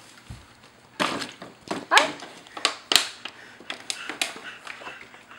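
Thin plastic crinkling and crackling in irregular sharp snaps, loudest about one, two and three seconds in.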